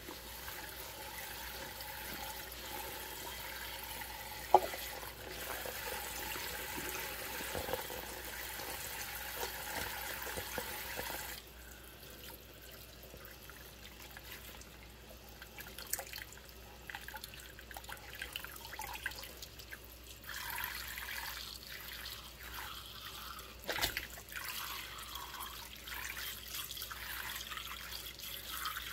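Kitchen tap water running into a soapy stainless steel sink while rubber-gloved hands scrub a plastic cup with a sponge. The steady rush of water stops about eleven seconds in, leaving wet splashing, dripping and rubbing of the gloves and cup, with one sharp click about four seconds in.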